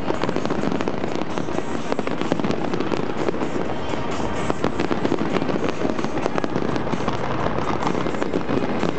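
Fireworks display: aerial shells bursting with dense, continuous crackling and popping, many sharp cracks a second at a steady loudness with no break.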